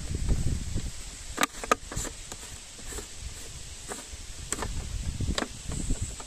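Sharp clicks and knocks of a clear plastic jar being handled and its red screw-on lid twisted open, about six of them spread over a few seconds, after a low rumble at the start.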